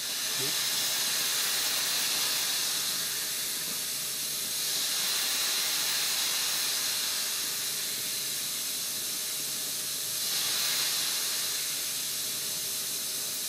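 Dental suction hissing steadily while the opened pulp chamber is irrigated, growing a little louder twice for a second or two.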